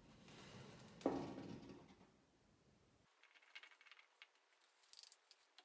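Faint handling sounds of a motorcycle front fender being eased onto the fork: a soft knock about a second in, then a few light clicks and taps.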